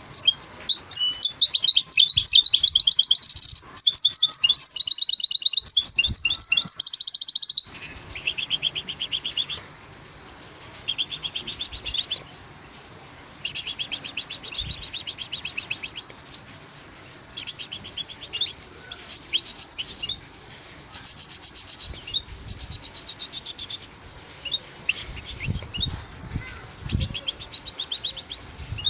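Goldfinch × canary hybrid (bandouk) singing in a cage: a long, loud run of rapid twittering trills for the first seven seconds or so, then shorter high twittering phrases every second or two with short pauses between. A few soft low thumps near the end.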